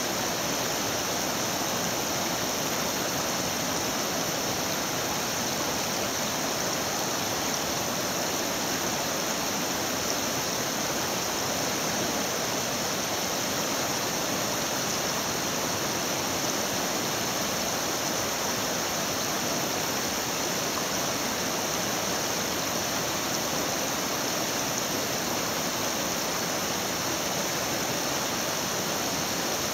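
Shallow rocky river rushing steadily over and between boulders in a rapid.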